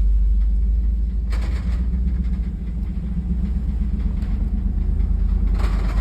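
A vehicle's engine and road rumble, a steady low drone, with two brief hissing noises, one about a second in and one near the end.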